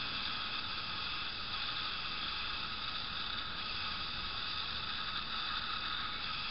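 Steady, even hiss with a faint high hum in it, unchanging and without distinct knocks or splashes.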